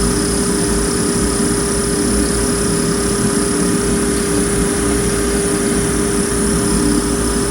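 Fan running steadily with an abnormal noise: a constant hum-like tone and a faint high whine over a rough low rumble.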